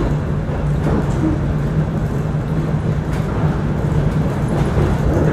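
ER2 electric multiple unit running, heard from inside a passenger car: a steady low hum over the continuous rumble of the wheels on the rails, with a couple of faint knocks.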